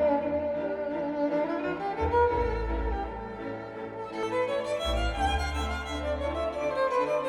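Recorded music played back through hi-fi loudspeakers: a sustained, string-like melody over long deep bass notes that sound for about two seconds at a time.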